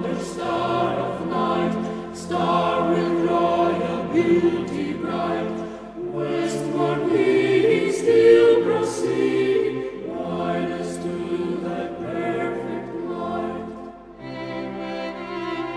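Background music: a choir singing slow, held chords.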